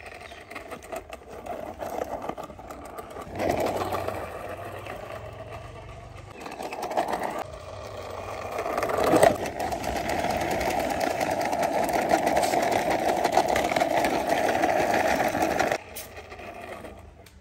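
Cheap plastic toy school bus pushed by hand along a rough concrete wall top, its wheels rolling with a steady grinding rattle. It comes in a few short runs, then a sharp knock and one long run of about six seconds that stops suddenly near the end.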